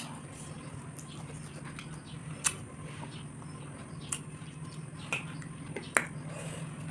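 Close-up eating mouth sounds: chewing with wet lip smacks and tongue clicks, a handful of sharper clicks at irregular intervals, over a steady low hum.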